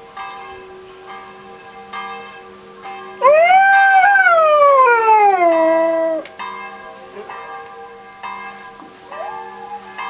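Church bells ringing, with a dog howling along to them. One long howl starts about three seconds in, rises, then slides down in pitch for about three seconds, and another howl begins near the end.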